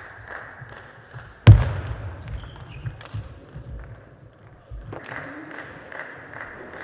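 Table tennis play: light clicks of the ball, and about a second and a half in one loud, sudden thump with a low boom dying away over half a second.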